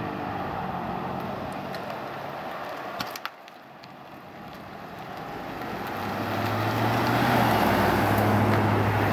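Road traffic at an intersection: a vehicle engine hum, a couple of sharp clicks about three seconds in, then another vehicle approaching and growing louder, its engine hum steady as it nears.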